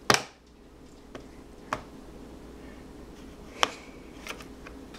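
A baby banging a spoon on a plastic high-chair tray: a few sharp knocks at uneven intervals, the loudest right at the start and others at about 1.7 and 3.6 seconds in.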